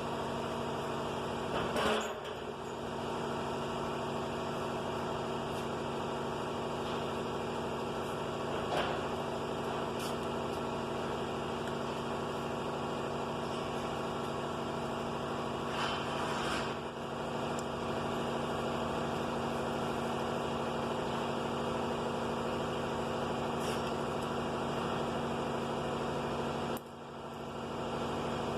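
Steady mechanical hum made of several even tones, with a few faint clicks or knocks scattered through it. It dips briefly near the end.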